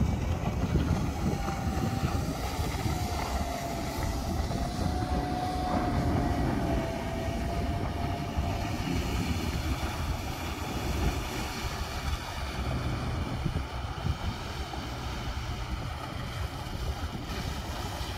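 Wind buffeting the microphone over open water, with a faint wavering engine whine from the Hurricane SS 218 deck boat's outboard running at speed in the distance; the whine fades out about halfway through.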